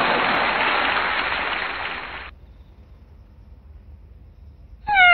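A steady rushing noise that fades away about two seconds in. Right at the end a cat begins a meow that falls in pitch.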